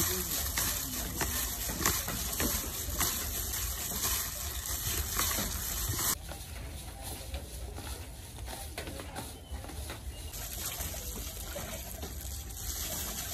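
A plastic-gloved hand squeezing and mixing sliced raw beef in a plastic tub, making wet squelching with the crinkle of the glove. It is louder for the first six seconds, then softer.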